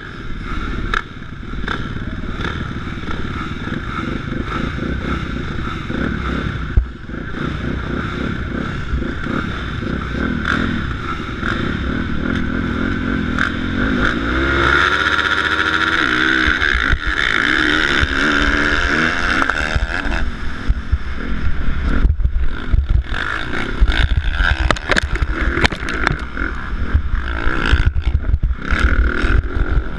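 Motocross dirt bike engine heard from the rider's helmet: running and revving, then from about halfway in climbing in pitch as it accelerates hard through the gears.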